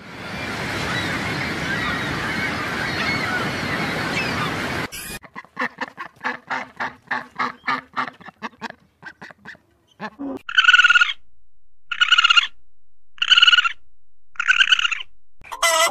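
Waterfowl calling. A dense flock chorus comes first. Then a rapid run of short calls, and finally four loud separate calls about a second apart.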